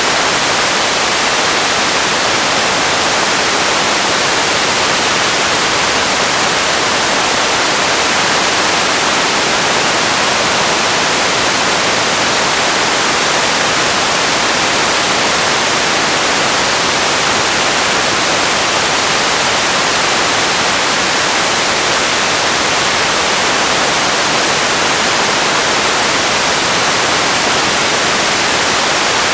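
Steady, even hiss of static-like white noise, heaviest in the high end, with no changes or separate events.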